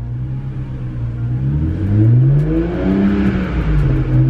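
BMW 335is twin-turbo straight-six revved up and back down, then up again near the end, heard from inside the cabin. Under it runs a light, even ticking of about five a second that does not follow the revs. The owner hopes it is a loose power steering pump rattling on the serpentine belt rather than the engine.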